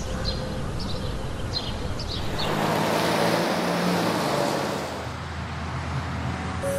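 City road traffic: a steady wash of passing cars and motor vehicles that swells for a few seconds in the middle, with a few short high chirps in the first two seconds.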